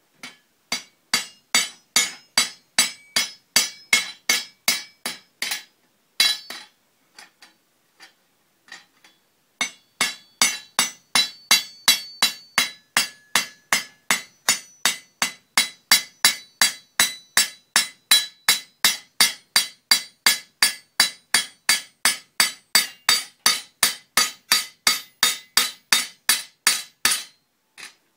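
Hand hammer peening a hot rivet on the anvil, riveting a forged hook to an iron back strap. The blows are quick and sharp, about three a second, with a short break and a few light taps about six seconds in, then a long steady run of blows.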